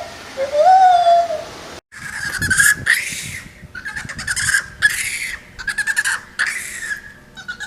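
Monkey calls: two short whistle-like calls that rise in pitch and then hold, then, after a brief break, a run of about six harsh, screechy calls.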